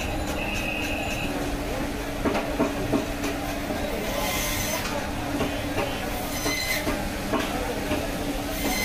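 A steady mechanical hum under irregular knocks and short scrapes as a large silver carp is handled and cut.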